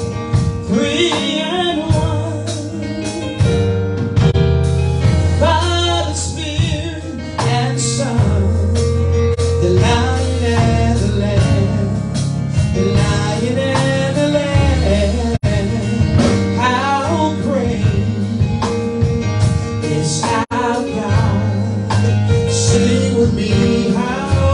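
Gospel worship song: voices singing over a band backing track, with steady bass notes and guitar.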